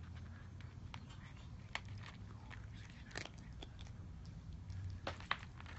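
A cat chewing its food, with irregular crunches as it bites.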